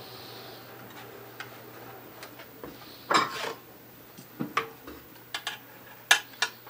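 Metal clicks and clatter of a sheet-metal binding folder being handled and locked onto a carpet binding machine, with a brief scraping rustle about three seconds in and a run of sharp clicks near the end, over a faint steady low hum. The machine is not sewing.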